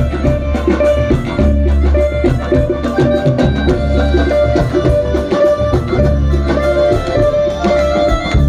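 A live band playing amplified through PA speakers: electric guitars and bass over a drum kit, with tabla prominent in a dense, driving rhythm.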